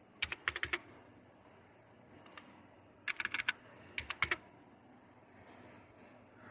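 Computer keyboard keys typed in three quick bursts of a few keystrokes each, with a single keystroke between the first two, entering new speed and power values.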